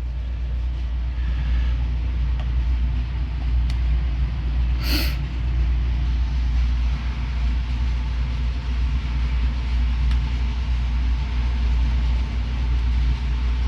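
Steady low rumble, with one short hiss about five seconds in.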